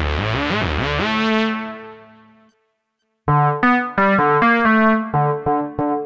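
Roland JUNO-60 software synthesizer playing lead presets. A lead line slides between notes, then holds and fades out about two and a half seconds in. After a short silence a brighter lead patch starts a melody of separate, short notes.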